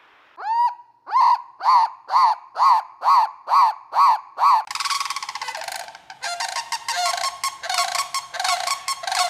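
A goose honking, a rising call and then about eight honks at roughly two a second, followed about halfway through by a faster, denser run of gabbling calls.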